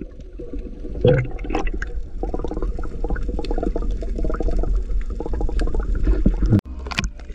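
Water gurgling and bubbling around an action camera held at and under the surface while a snorkeler swims, with a constant low rumble and a dense, rapid crackle of bubbles. There are two louder splashes about a second in, and the sound cuts out for an instant near the end.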